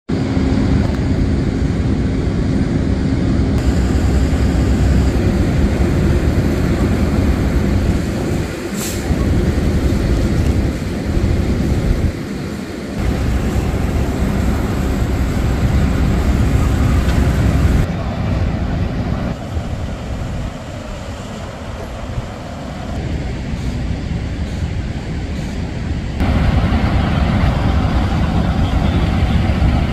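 Fire apparatus diesel engines running steadily and loudly while pumping water to an aerial ladder's master stream. The overall sound shifts in level a few times.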